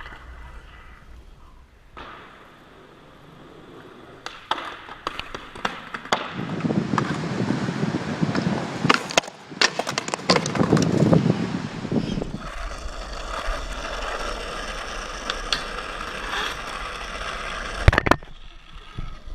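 Skateboard wheels rolling over rough pavement, with a heavier rumble through the middle, scattered clacks of the board, and one loud sharp clack near the end.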